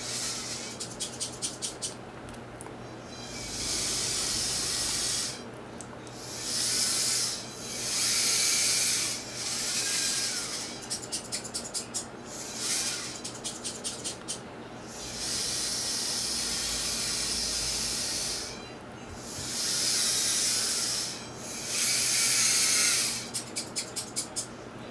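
Small wheeled robot's geared drive motors whirring in repeated bursts of one to three seconds as it drives and turns, with rapid trains of ticking in the pauses between runs.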